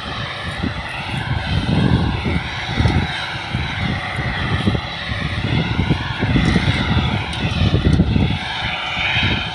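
Combine harvester running while cutting grain, its engine and threshing gear giving a steady, slightly wavering whine, with gusty low rumbling from wind on the microphone.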